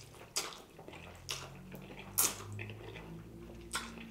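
Close-miked eating sounds: noodles slurped from a cup of broth, with wet mouth and chewing noises. Several sharp slurps come about a second apart.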